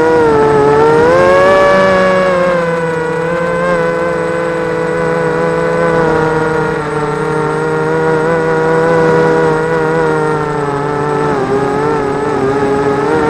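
Racing quadcopter's four EMAX 2204 2300KV brushless motors and propellers whining close to the onboard camera, the pitch wavering up and down with the throttle and swelling about a second in.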